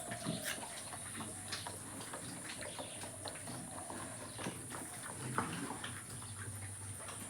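Pigs in a pen, with scattered short clicks and knocks and some low animal sounds.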